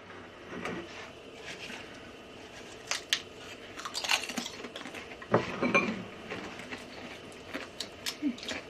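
Potato chips being bitten and chewed: an irregular scatter of short, crisp crunches, a few louder clusters among them.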